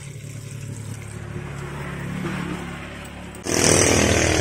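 A motor vehicle's engine running, its low hum growing steadily louder over the first three seconds. About three and a half seconds in, the sound jumps abruptly much louder and harsher, with a hiss on top.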